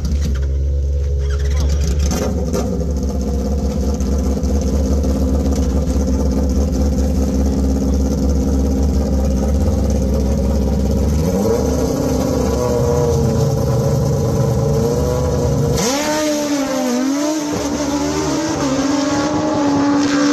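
Drag-racing motorcycle engine held at the starting line, its revs rising and holding a little past halfway. It then launches hard about three-quarters of the way through, the pitch climbing and dropping several times through quick gear shifts as it pulls away down the strip.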